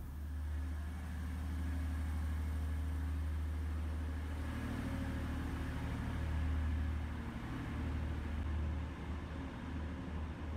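Passenger train's diesel engine running, a steady low rumble that swells a little midway and wavers near the end.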